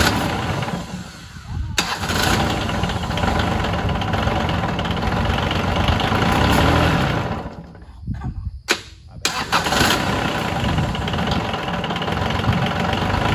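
Small Kubota D662 diesel engine cranking on its starter in an attempt to fire it, with the fuel pump bypassed and fuel fed by gravity. The sound breaks off for about a second around eight seconds in, then resumes.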